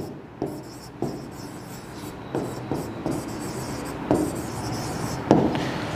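Stylus scratching and tapping on the glass of an interactive display board as handwriting is written out: a run of short, irregular scratchy strokes with a few sharper taps.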